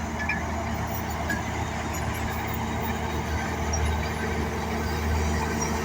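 A heavy machine's diesel engine running at a steady speed, a low, even drone.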